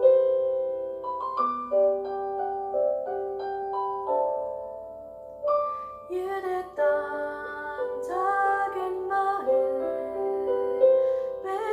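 Christmas carol medley: a piano accompaniment plays alone for about six seconds, then voices come in singing the melody over it.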